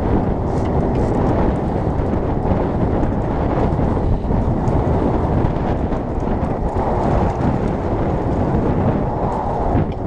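Strong wind blowing across the microphone as a steady, loud low rumble, with the sport-fishing boat's motor running underneath.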